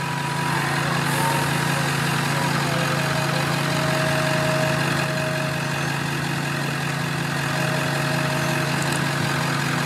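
An engine running at a steady idle, with a faint whine over it.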